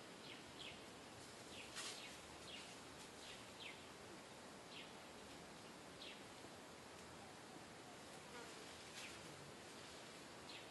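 Faint outdoor ambience: a steady hiss of insects with short high chirps every second or so.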